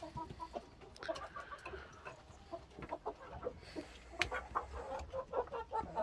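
A pen full of chickens, mostly roosters, making short, scattered calls that overlap throughout, with one sharp click about four seconds in.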